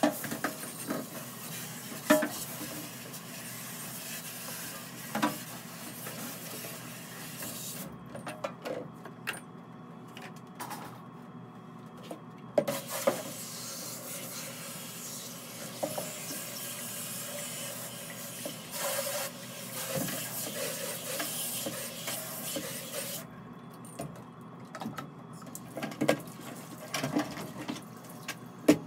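Tap water running into a stainless steel sink as containers are rinsed out, with frequent clinks and knocks of buckets and utensils against the sink. The running water stops for a few seconds twice, about eight seconds in and again near 23 seconds.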